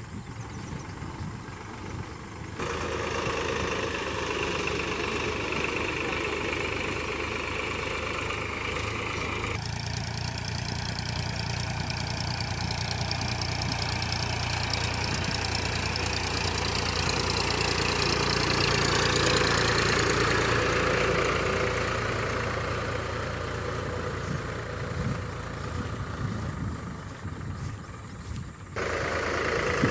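Powertrac 434 tractor's three-cylinder diesel engine running steadily under load as it pulls a leveller through tilled soil. The sound changes abruptly about three seconds in, about ten seconds in and near the end.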